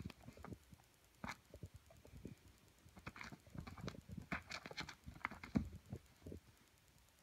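Scuffling of a play fight with a cat: quick, irregular thumps, rustles and scratches as its paws and claws strike and drag across gloves and fabric, getting busier after a few seconds.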